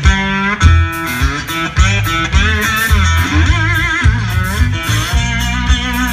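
Live blues band playing: an amplified cigar box guitar plays lead lines with string bends and vibrato over electric bass and drums.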